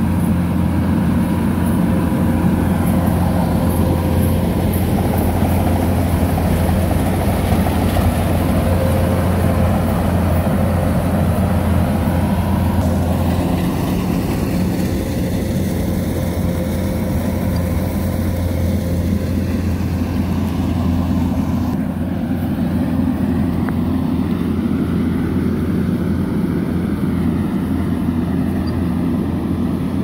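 Kubota combine harvester's engine and threshing machinery running steadily at working speed while it harvests rice, a little quieter from about halfway through.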